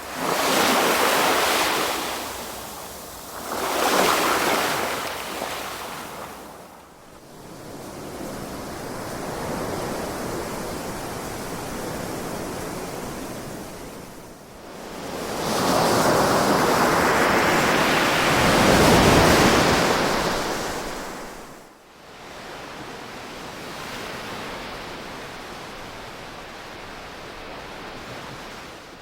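Ocean waves breaking and washing ashore in repeated surges, with the longest and loudest wave breaking about halfway through.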